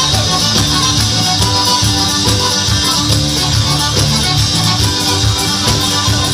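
Instrumental passage of a southern Italian folk tarantella, played at a steady, fast beat without singing.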